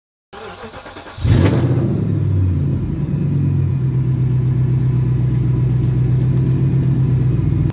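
BMW E60 545i's 4.4-litre V8 starting: a brief crank, then it catches with a rev about a second in and settles into a steady idle.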